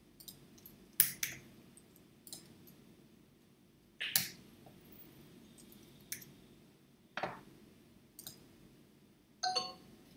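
Scattered single computer keyboard and mouse clicks, about eight sharp taps spread over the stretch with pauses between them, as a typed word is corrected and the answer is submitted.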